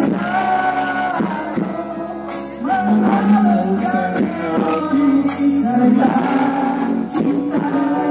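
Live singing into a microphone over amplified music with a steady beat, the singer holding long notes.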